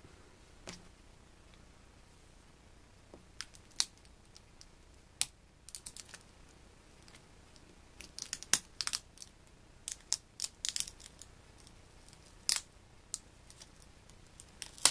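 Plastic layers of a cell phone's screen assembly clicking and snapping as they are pried apart by hand: scattered sharp clicks, mostly in clusters through the middle and later part, with quiet gaps between.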